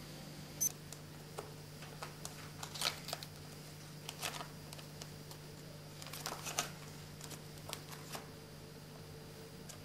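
Cards being flipped through in a small plastic card index box: faint papery rustles and light clicks, scattered in small clusters.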